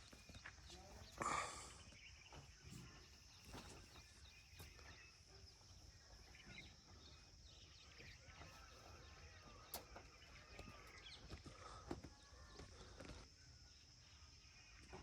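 Faint outdoor ambience: a steady high hiss with scattered faint clicks and one brief louder noise just over a second in.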